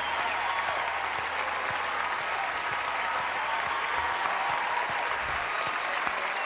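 Audience applauding steadily, with a few scattered cheers.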